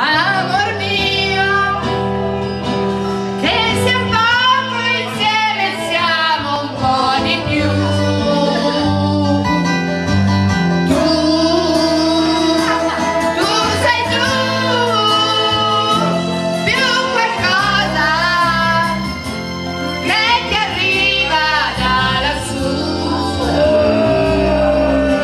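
A female voice singing into a handheld microphone over a backing track, karaoke-style, with a held bass line beneath the melody.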